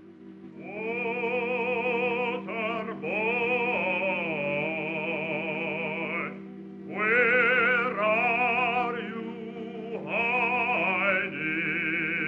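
Background music: operatic singing in long, wavering held notes over a low sustained accompaniment, in a few long phrases with short breaks.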